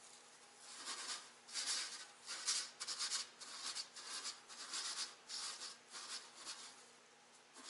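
Dry mugwort tea leaves rustling as a hand stirs and pats them in a wide pan: a run of short rustles about twice a second that dies down near the end. The leaves are roasted dry, with no more steam rising from them.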